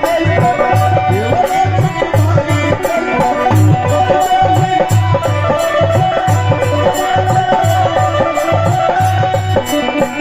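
Instrumental break in a Bhojpuri devotional folk song: hand drums keep a steady beat under a shaker and a melody line.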